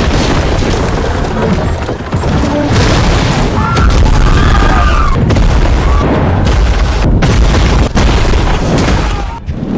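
Loud booms and crashes over a continuous heavy low rumble, with dramatic music underneath: a battle and explosion sound effect for an orc assault.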